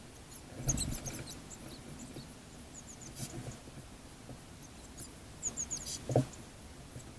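Small garden birds at a bird feeder: two close knocks on the feeder, one about a second in and one near the end, with short high chirps between them.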